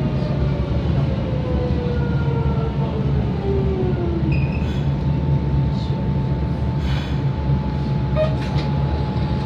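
Kobe Municipal Subway 3000 series car's Hitachi GTO-thyristor VVVF inverter whining as the train slows for a station: a falling whine over the first few seconds gives way to a steady tone, over a constant rumble of wheels on track with a few clicks. This car's acceleration and braking sound is suspected to be unusual compared with the rest of the fleet.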